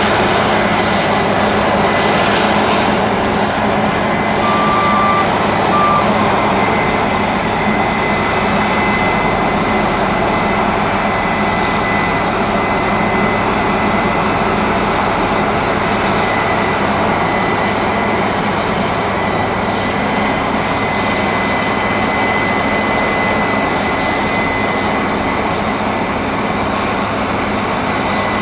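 Combine harvester cutting a cereal crop, its engine and threshing machinery running as a loud, steady drone with a thin high whine over it.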